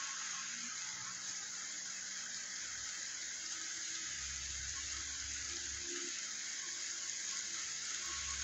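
Steady rain falling on a wet street, an even hiss. A low rumble comes in about four seconds in, eases off, and returns near the end.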